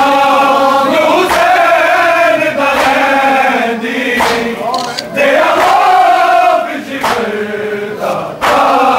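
Men's voices chanting a noha (Shia mourning lament) together, held and sliding lines, punctuated by sharp beats every second or two.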